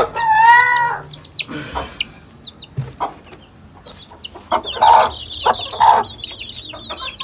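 Chicks peeping in many short, high chirps that grow denser near the end, with a hen's loud wavering call at the start and a few clucks.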